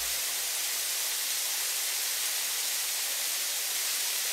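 Steady hiss of water spraying from car-wash hose nozzles, an animation sound effect.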